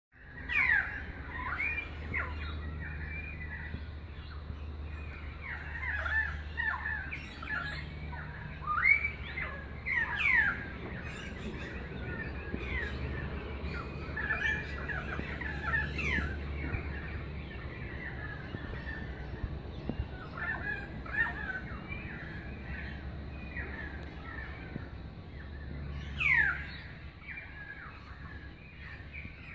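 Currawongs calling: many overlapping whistled calls, with a few loud, sharply falling whistles standing out.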